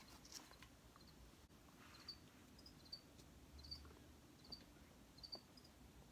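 A cricket chirping faintly, short high chirps about twice a second starting about two seconds in, over near silence with a few light taps.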